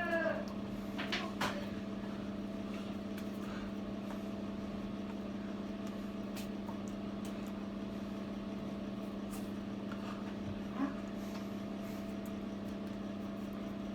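Steady machine hum with two constant pitches, with a couple of light clicks about a second in.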